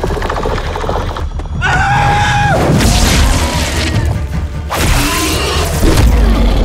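Film action soundtrack: a dramatic score under heavy booms and crashes, with a high held note about two seconds in that drops away at its end.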